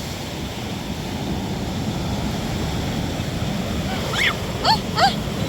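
Sea surf washing on the beach with wind on the microphone, a steady rushing noise. Near the end, three short high-pitched vocal cries.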